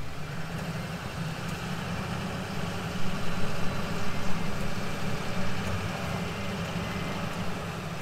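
Truck engine running steadily at low revs as a stuck pickup creeps forward in drive on snow, a little louder for a couple of seconds from about three seconds in.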